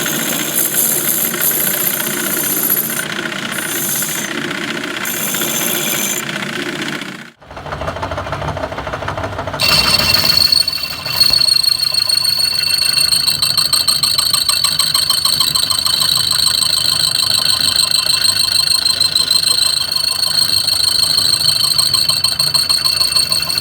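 A metalworking machine grinding the teeth of a rusted gear, running with a rapid rattling chatter. A sudden break about seven seconds in is followed by a steady high whine over the rattling from about ten seconds in.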